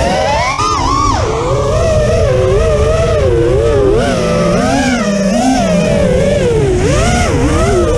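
FPV racing quadcopter's brushless motors and propellers whining, heard from the onboard GoPro, the pitch swinging up and down constantly with the throttle over a steady low rumble. The pitch is highest in the first second, then drops.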